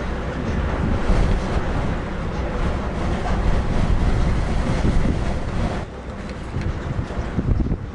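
Strong wind buffeting the microphone: a loud, low rumbling noise that drops away briefly about six seconds in.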